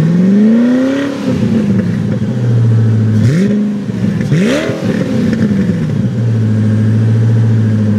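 2009 Koenigsegg CCXR's twin-supercharged V8 revved at the exhaust: one rev climbs to a peak about a second in and falls back, then two quick blips follow near three and four and a half seconds. It settles to a steady idle.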